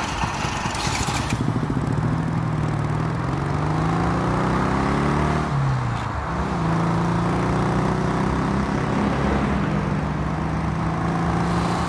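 Motorcycle engine accelerating: its pitch climbs for a few seconds, drops sharply about halfway through at a gear change, then climbs again and settles to a steady run.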